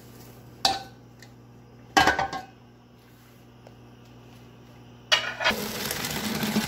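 A metal cooking pot clanks twice as it is handled on the stove. About five seconds in, parboiled basmati rice and its boiling cooking water are poured into a colander to drain, with a steady gushing splash.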